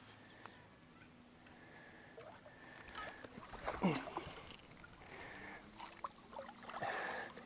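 Water splashing and sloshing as a hooked smallmouth bass is fought at the surface beside a small boat, starting after a quiet couple of seconds and coming in irregular bursts, with a short sound falling sharply in pitch about four seconds in.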